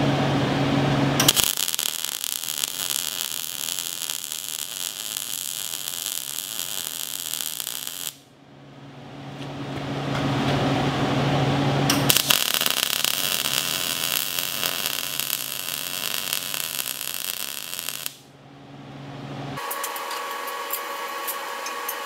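MIG welder arc crackling and sizzling in two long weld passes of about six seconds each, each cutting off abruptly, with a low steady hum in the pause between them.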